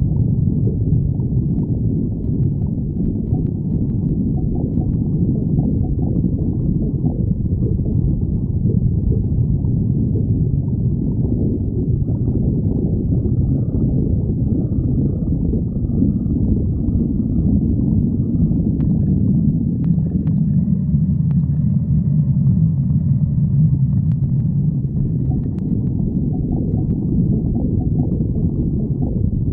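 A person's stomach growling: a continuous low rumble, with faint higher squeaky tones over it in the middle stretch.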